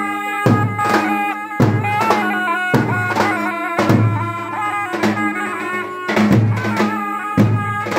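Albanian lodër, a large double-headed bass drum, beaten with a heavy stroke about once a second and lighter strokes between, under two surle (wooden shawms) playing a loud, piercing, ornamented melody.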